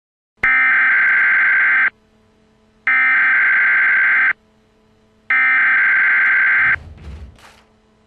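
Emergency Alert System SAME header data tones: three identical harsh digital screeching bursts about a second and a half each, with a one-second gap between them, carrying the code for an Emergency Action Notification. A fainter low rumble follows near the end.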